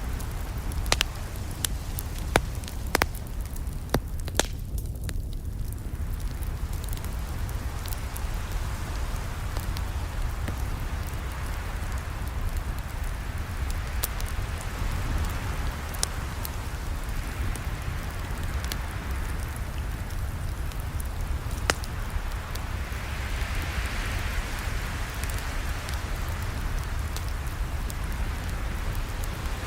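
Campfire burning: a steady low rumble of flames with sharp crackles and pops. The pops come thick in the first few seconds and are sparser after.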